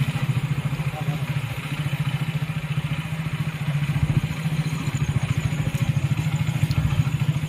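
Engine of the open vehicle being ridden, running steadily with a fast low throb.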